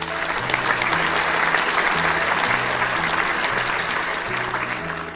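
Applause and clapping over light background music, swelling in the first couple of seconds and fading away near the end.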